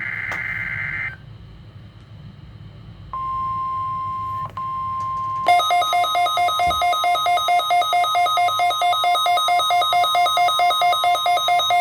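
NOAA Weather Radio Required Weekly Test coming through a Midland WR120 weather radio. For about the first second the tail of a buzzing SAME digital header burst plays. About three seconds in, a steady single-pitch alert tone near 1 kHz sounds for about two seconds, with a brief break. From about five and a half seconds in, the receiver's own loud, evenly pulsing alert beep takes over.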